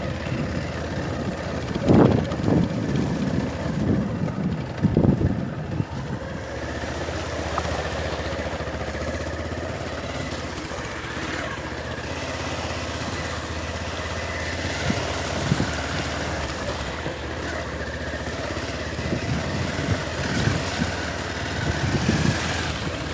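Motorcycle engine running at low speed on a rough dirt track, with a steady low hum and a couple of louder low thumps about two and five seconds in.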